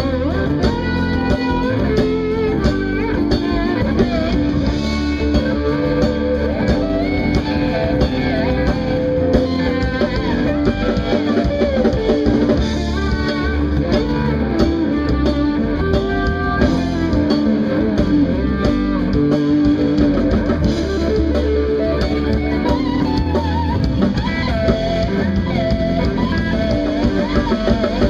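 Live instrumental band music: an electric guitar plays melodic lead lines over bass and drum kit.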